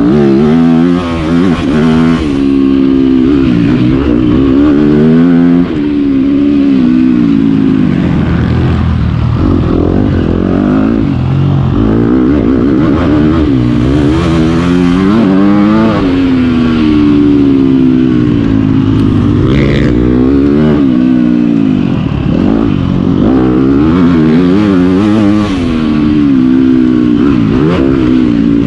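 Yamaha YZ250F four-stroke single-cylinder motocross engine ridden hard, the revs climbing under throttle and falling off again every two to four seconds as the throttle is opened and shut, recorded close up from the bike's onboard camera.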